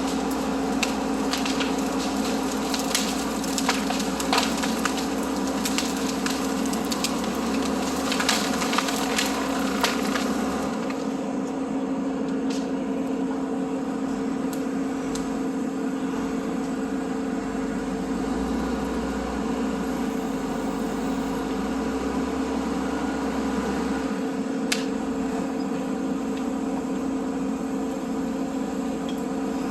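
Backhoe diesel engine running steadily under load while dragging logs. Many sharp cracks and snaps over the first ten seconds, then only a few.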